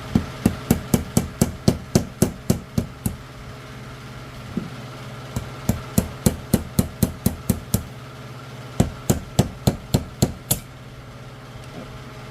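Hammer tapping a new front seal into a Chrysler A-518/46RH transmission pump housing: quick, light, evenly spaced taps about three a second, in three runs with short pauses between. A steady low hum runs underneath.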